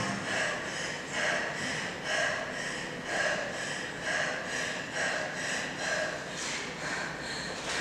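Heavy, rhythmic breathing from a performer, one loud breath about once a second.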